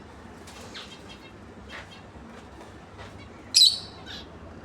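Lovebirds chirping: a few soft, short chirps, then one loud, high chirp about three and a half seconds in.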